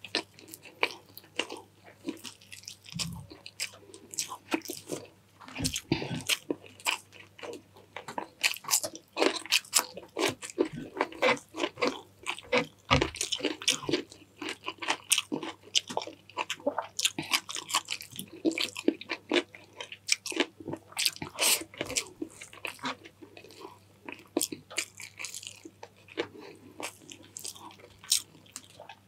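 A person chewing and biting food close to the microphone: a dense, irregular run of small wet clicks and crunches with no pause.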